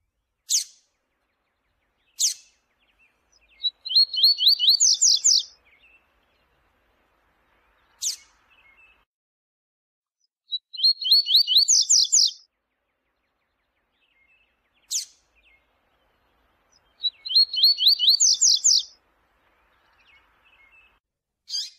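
Double-collared seedeater (coleiro) singing the 'viu-tiu' song. Single sharp high notes come every few seconds, and three times a quick run of a dozen or so notes climbs in pitch over about a second and a half.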